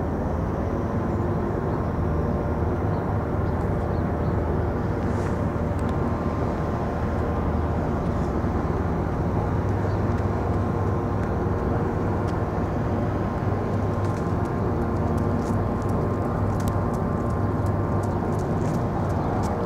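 Steady city street noise: a constant mechanical hum with a low engine drone, as from idling or passing vehicles, and a few faint clicks in the last few seconds.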